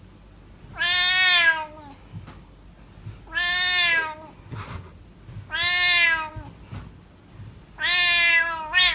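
A domestic cat meowing four times in a steady rhythm, about two and a half seconds apart. Each meow is long and drawn out, falling in pitch at its end, with a short extra meow tacked onto the last one.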